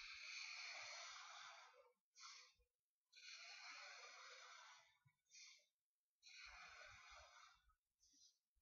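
Felt tip of a Sharpie permanent marker drawing on paper: three long, hissing strokes, each followed by a short one, as curved lines are drawn.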